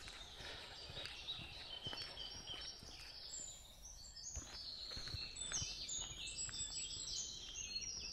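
Several songbirds singing, with many short, high chirps and trills overlapping, busiest in the second half. Soft footsteps on a path sound faintly underneath.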